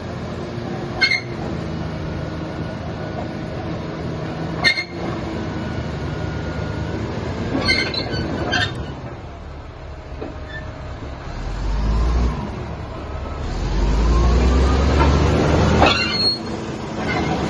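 Komatsu D155 bulldozer running, its diesel engine giving a steady drone broken by several sharp metallic knocks. About twelve seconds in, the engine note rises and a heavier low rumble comes in for a few seconds.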